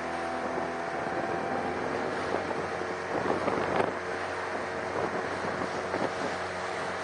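A small boat's engine running steadily under way, with water splashing against the hull and wind on the microphone. A louder rush of splashing about three and a half seconds in, and another near the end.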